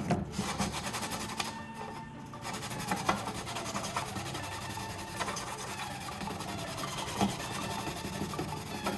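Hard plastic being worked with an abrasive in quick, steady rasping strokes.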